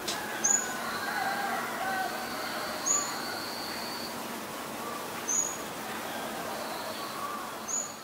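Wild birds calling in the background. A short, sharp, very high note repeats about every two and a half seconds over softer, lower warbling song.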